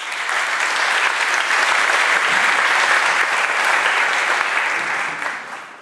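Audience applauding: a dense, steady clapping that starts at once and fades away near the end.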